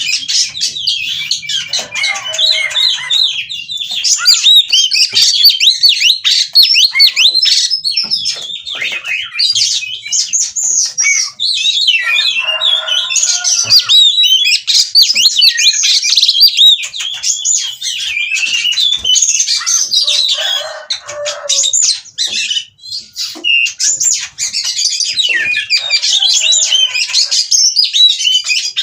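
Oriental magpie-robin (kacer) singing loudly and continuously, a rapid run of varied whistled notes and fast sweeps, broken a few times by short harsh rasping phrases.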